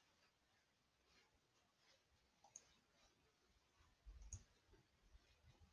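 Near silence: room tone with two faint computer-mouse clicks, one about two and a half seconds in and another just under two seconds later.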